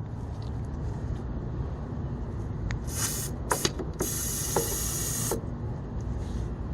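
Aerosol can of mass air flow sensor cleaner spraying into the engine's air intake tube: a short hissing burst about three seconds in, a second brief one, then a longer spray of about a second and a half.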